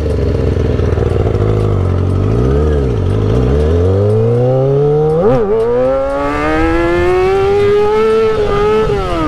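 Stunt motorcycle's engine revving and accelerating: the pitch dips and comes back around three seconds in, flicks up and down once about five seconds in, then climbs steadily as the bike speeds up.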